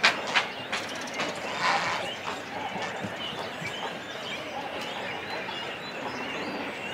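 Cormorant nesting colony: a few harsh calls close by in the first two seconds, the loudest about 1.7 s in, then a busy, steady background of chirps and calls from many birds.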